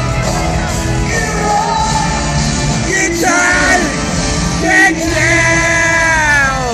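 Rock band playing live with a man singing long wordless held notes; the last note slides down in pitch near the end.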